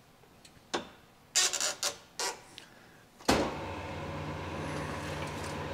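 A few sharp clacks of the honing tooling being set, then a vertical cylinder-honing machine starting up about three seconds in and running with a steady hum, ready for the finishing pass with 600-grit CBN stones.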